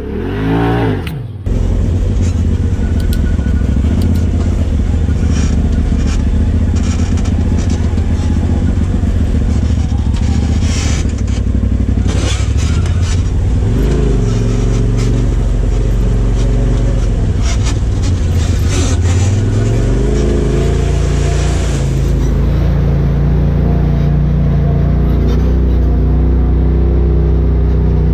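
Polaris RZR Turbo S side-by-side UTV's turbocharged twin-cylinder engine running under load as it crawls a rutted dirt trail. It gives a brief rev in the first second, then a steady drone whose pitch dips and rises again a few times. Clicks and knocks from the chassis come over the bumps in the first half.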